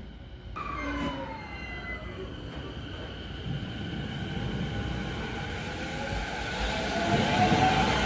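Keio 10-300 series electric train pulling away from a station platform. Its traction motors whine in gliding tones that rise as it gathers speed, over a rumble of wheels on rail that grows louder over the last couple of seconds.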